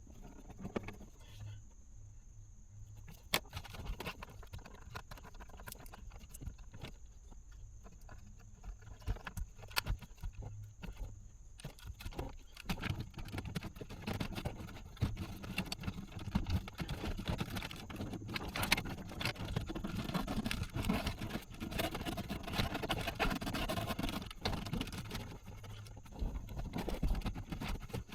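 Hands working on car parts: irregular clicks, taps and rustling as wiring and plastic pieces are handled, sparse at first and busier and louder from about halfway on.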